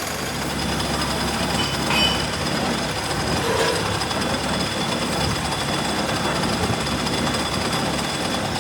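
Workshop machinery running with a steady, dense mechanical noise, with a brief high squeal about two seconds in.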